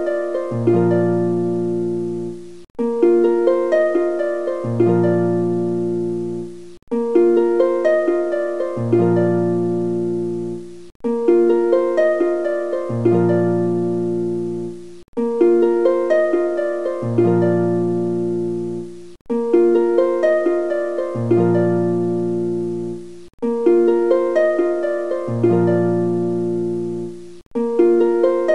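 Background music: a short plucked-string tune looping about every four seconds, each repeat a run of notes over a low held bass note, with a brief cut between repeats.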